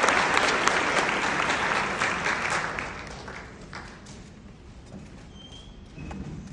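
Audience applauding in a hall, dying away over about three seconds to a few last scattered claps.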